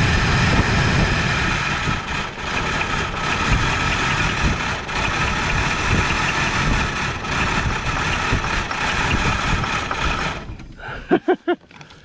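1984 Ford Thunderbird's 5.0 V8 running on fuel poured down its intake. About ten seconds in it stumbles and dies as the poured fuel runs out; it is not getting fuel through its injectors.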